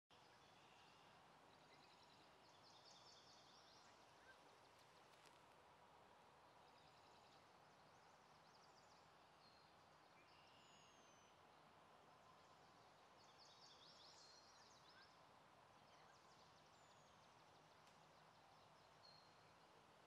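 Faint marsh ambience: small birds chirping and whistling, with two bursts of quick high notes, one a few seconds in and another past halfway, over a steady low hiss.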